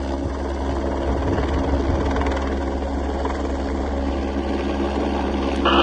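Helicopter running steadily, a constant low drone with a fixed engine-and-rotor hum. Right at the end a loud, bright burst of radio speech cuts in over it.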